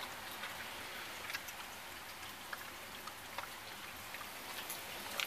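Steady rain, an even hiss with a few faint scattered ticks.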